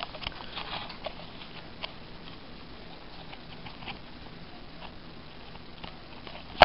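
Light clicks and rustles of a cardboard 2x2 coin holder being handled in the fingers, scattered and most frequent in the first two seconds, ending in one sharper knock.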